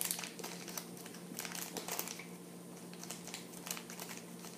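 Small plastic-handled children's scissors snipping into a crinkly plastic blind bag, with the bag rustling in the hands: a scatter of light snips and crinkles.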